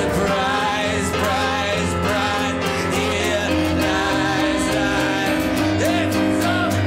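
A song performed live: a woman and a man singing over grand piano and acoustic guitar.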